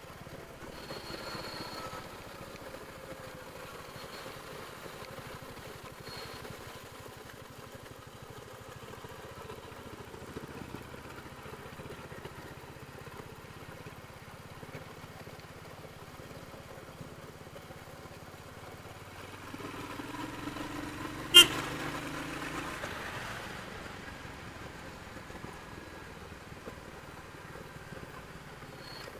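Royal Enfield Hunter 350's single-cylinder engine running on its stock exhaust. It grows louder for a few seconds about two-thirds of the way in, when a single sharp click is heard.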